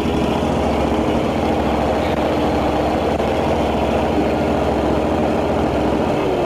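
Zero-turn riding lawn mower's engine idling steadily, its pitch starting to drop right at the end.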